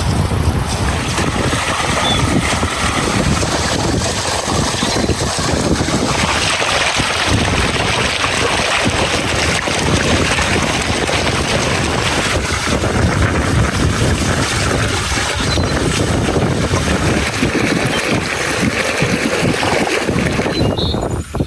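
Loud, gusting wind noise buffeting the microphone outdoors, a dense rushing rumble that rises and falls without a break.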